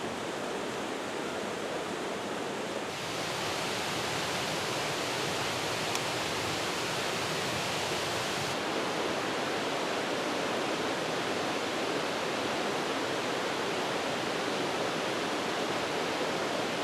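Steady rushing noise like running water, with a step up in level about three seconds in.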